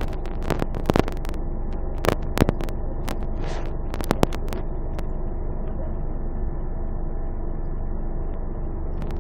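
Scania CN280UB city bus's engine idling, heard inside the passenger cabin as a steady hum. Sharp clicks and knocks come in the first half, and a short hiss about three and a half seconds in.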